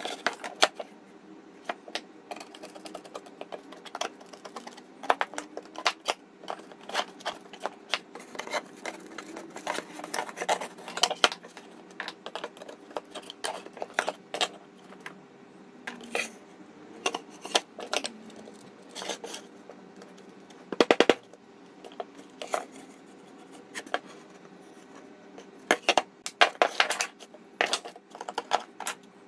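Irregular sharp knocks, clicks and metallic clinks of hand tools being handled and tapped against a wooden toolbox panel and its metal fittings on a workbench, with a quick run of rapid taps about two-thirds through and another cluster near the end, over a faint steady hum.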